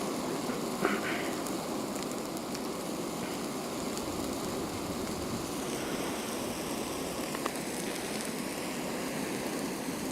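Black spruce wildfire burning: a steady rushing of flames with scattered crackles and pops, the loudest about a second in.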